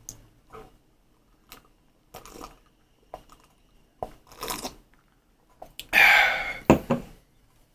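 Sips and swallows of juice from a glass of iced juice, with small clinks of ice. About six seconds in, the ice rattles as the glass is lowered, and it is set down on the countertop with a sharp knock.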